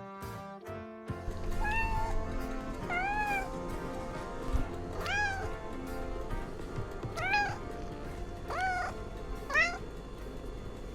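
Domestic cat meowing repeatedly, about six meows spaced a second or two apart, each rising then falling in pitch. A short bit of brass music ends about a second in.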